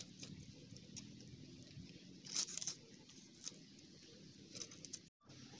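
Faint, intermittent scratching as a climbing perch is scraped against a rough stone to strip off its scales, in short separate strokes, the loudest about two and a half seconds in.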